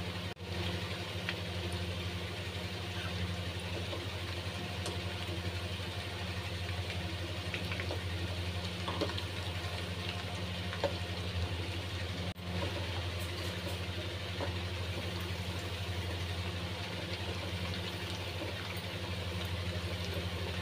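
Mutton chops deep-frying in hot oil: a steady sizzle and crackle over a constant low hum.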